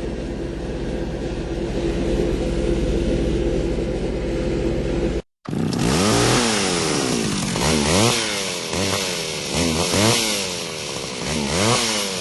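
Chainsaw engine idling steadily, then, after a brief cut about five seconds in, revved up and down over and over, about once a second.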